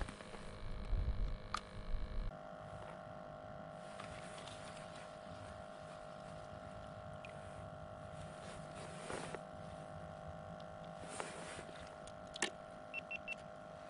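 A steady motor drone holding one even pitch, with a few sharp clicks and taps over it.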